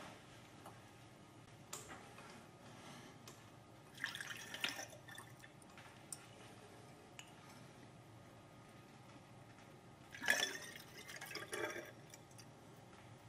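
Liquid poured through a glass funnel into a glass graduated cylinder, in two short spells: heptane about four seconds in, then water about ten seconds in, each a trickling splash lasting a second or two.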